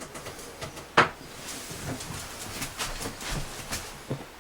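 Metal parts of a Schlage privacy door lever being handled and fitted into the door. There is one sharp click about a second in, then light clicks and rattles.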